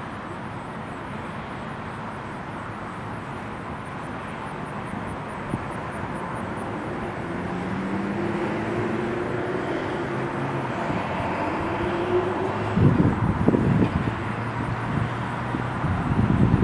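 Engine drone slowly growing louder over the outdoor background, its pitch shifting gently, with low gusts of wind buffeting the microphone over the last few seconds.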